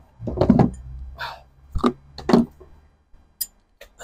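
Short metallic clinks and knocks of a spanner and socket tools being handled at a truck's chassis as a corroded bolt comes free: four louder ones in the first two and a half seconds, then a couple of faint ticks near the end.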